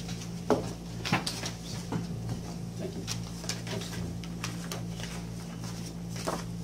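Paper rustling and being shuffled, with scattered light clicks and knocks, over a steady low electrical hum.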